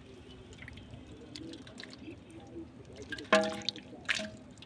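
Water dripping and splashing in small scattered drops. About three seconds in comes a short, loud pitched sound, followed a moment later by a brief splash-like burst.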